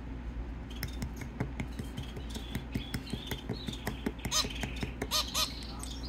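White zebra finch giving short nasal, honking calls, several in quick succession in the last two seconds, with fainter chirps before them. Light clicks and taps run through most of it.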